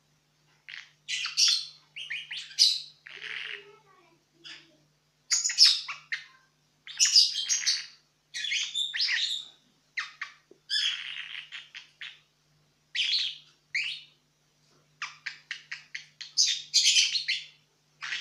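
Pet lovebird chattering in short, high chirping bursts with quiet gaps between them, including a quick run of rapid clicks about fifteen seconds in: the drowsy chatter its owner calls snoring.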